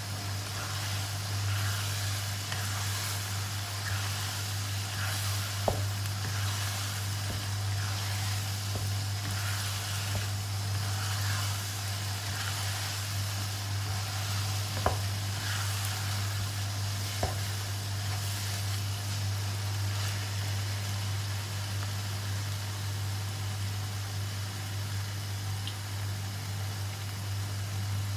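Chilli paste sizzling as it fries in a wok, stirred with a wooden spatula, with three sharp knocks of the spatula against the pan. A steady low hum runs underneath.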